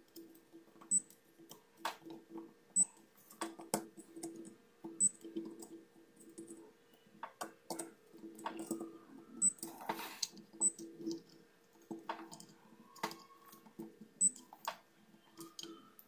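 Small irregular clicks and taps of metal multimeter probe tips against the solder joints and component leads of a switch-mode power supply board, during a diode check of its rectifiers. A faint steady low hum sits underneath.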